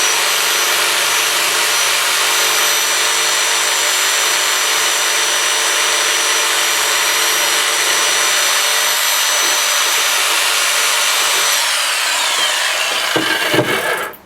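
Jigsaw running at a steady speed as its blade cuts through the plastic shell of a car key fob, with a high motor whine over the cutting noise. About twelve seconds in the whine falls in pitch as the saw winds down, and it stops shortly before the end.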